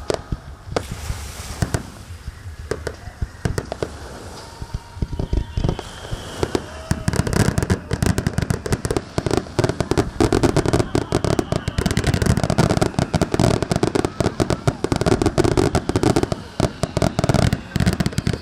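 Fireworks display: scattered bangs of bursting shells, then from about seven seconds in a dense, rapid barrage of bangs and crackling that goes on until near the end.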